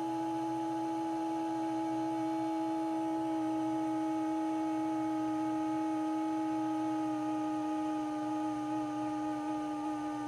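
Vent of an Eibos Tetras X giving off a steady humming whistle, one held pitch with overtones, while it is rising. Near the end the tone starts to waver.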